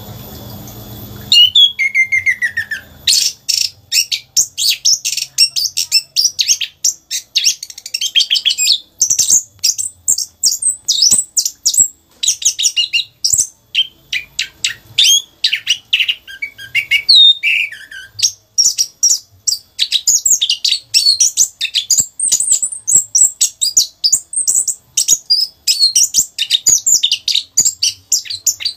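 A chestnut-capped thrush (anis kembang) in full song. It starts about a second in with a rapid, nearly unbroken stream of high chirps, trills and short whistled notes, the continuous run that bird keepers call "rock n roll".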